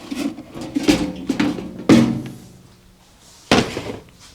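A few sharp wooden knocks and thunks, roughly a second apart, as a thin plywood panel is worked into a metal tool chest drawer.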